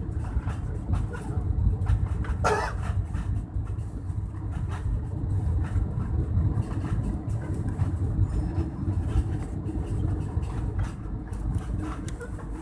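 Steady low rumble inside the cabin of an Airbus A320 as it lands, with light rattling and a brief higher-pitched sound about two and a half seconds in.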